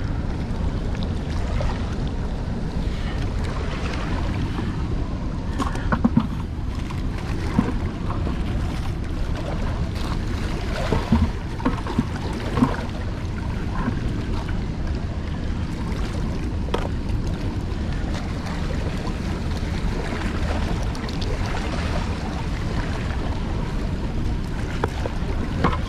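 Steady rush and rumble of water pouring through the open spillway gates, with wind buffeting the microphone. A few short clicks and knocks in the middle come from handling a caught catfish.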